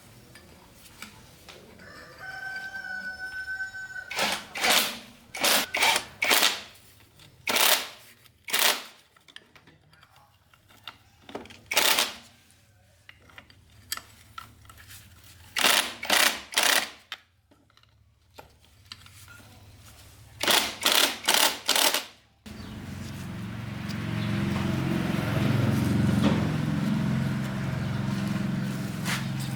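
A rooster crows briefly, then clusters of sharp knocks sound one after another, two to four at a time. About three-quarters of the way through a steady low motor starts running and keeps going.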